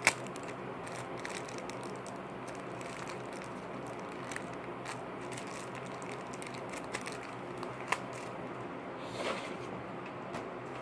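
Hands handling packaging: scattered light clicks and faint crinkling over a steady hiss, with a sharp click right at the start and another about eight seconds in.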